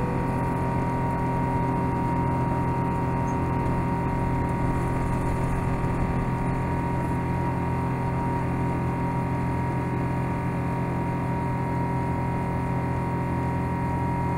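Airbus A350-1000's Rolls-Royce Trent XWB-97 turbofan engine running at climb power, heard inside the cabin as a steady drone with a steady whine over it.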